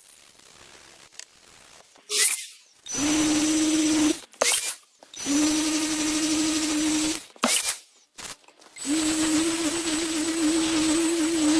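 Small handheld power tool motor running at a steady high speed in three bursts of about one to three seconds, with a sharp click before each start.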